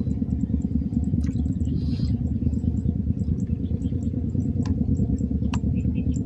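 Wind buffeting the microphone: a steady, fluttering low rumble, with faint short high ticks scattered over it.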